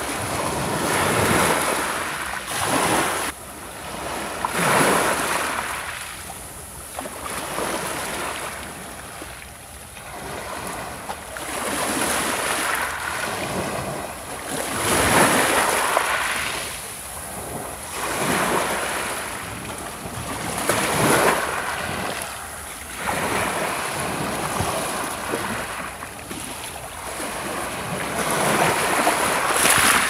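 Small sea waves breaking and washing up a pebble beach, each surge swelling and fading every few seconds.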